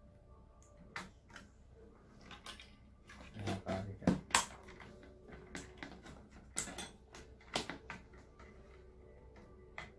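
Scattered clicks and knocks of hard plastic and metal as a CPU heatsink-and-fan cooler is handled and pressed onto a motherboard, the loudest cluster about four seconds in.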